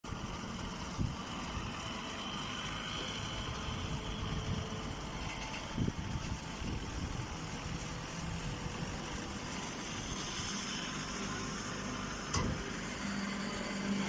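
Machinery running steadily, with a few short clunks. A steady low hum sets in near the end.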